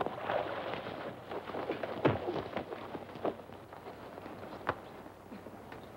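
Fistfight scuffle: shuffling and grappling, with a few sharp blows, the loudest about two seconds in.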